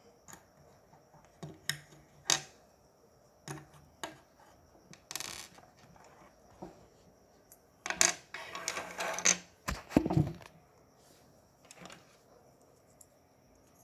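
Plastic Lego bricks clicking and knocking as they are handled, picked from a loose pile and pressed together on a wooden tabletop. Single clicks come every second or two, with a longer stretch of clattering about eight seconds in.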